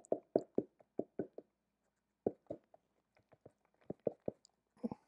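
Cardboard pancake-mix box being tapped and jiggled against the rim of a measuring cup to shake out powdered mix a little at a time: a quick, irregular run of soft knocks with a short pause about a second and a half in.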